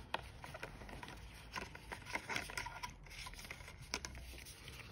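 Clear plastic packaging handled and slid out of its box by hand: scattered light clicks, crinkles and scraping.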